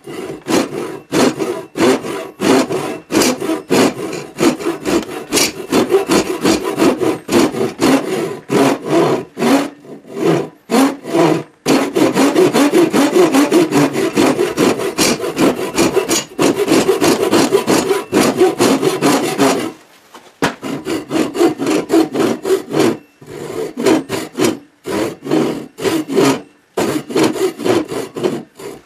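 Hand saw cutting down through a birch board held in a vise, in steady back-and-forth strokes of a couple a second. About halfway in the strokes come quicker and run together for several seconds, then stop briefly before the steady strokes resume.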